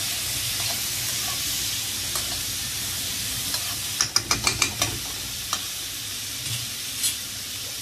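Cauliflower and masala sizzling steadily in a frying pan. About four seconds in, a quick run of clicks from stirring against the pan, with a couple of single clicks later.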